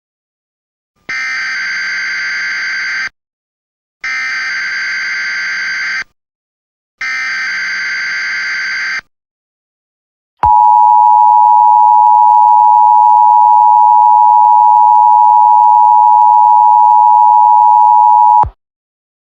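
Emergency Alert System header: three harsh digital data bursts of about two seconds each, a second apart, then the EAS two-tone attention signal, a steady tone held about eight seconds that cuts off sharply. Together they herald a new alert message.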